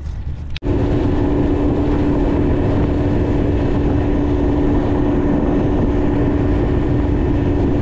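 Boat motor running steadily at speed: a constant drone with a rushing noise over it, starting suddenly about half a second in.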